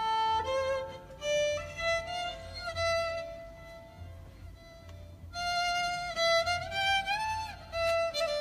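Solo violin playing a slow melody by ear, the notes sliding into one another. There is a phrase of about three seconds, a pause of roughly two seconds, then a second phrase.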